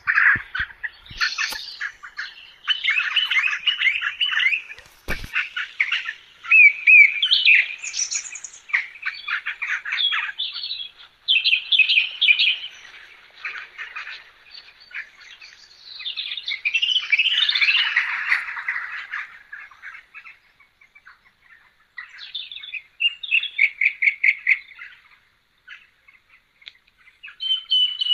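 Songbirds chirping and singing: quick chirps and trills in runs, broken by short pauses.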